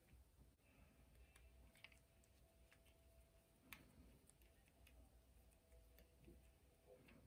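Near silence with a few faint, sharp clicks, the loudest about halfway through: a precision screwdriver working the tiny screws of an iPhone 6 Plus home-button bracket on the display's metal back plate.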